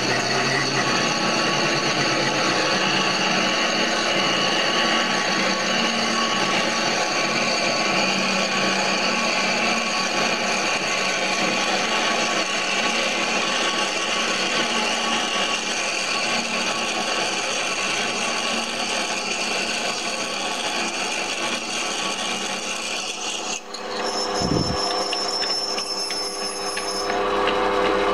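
Metal lathe drilling a casting with a 10.5 mm twist drill fed from the tailstock chuck, a steady grinding cut run at reduced speed and heavier feed to stop vibration. About 23 seconds in, the cutting noise stops and the lathe runs on with a lighter whine, and a brief thud follows a second later.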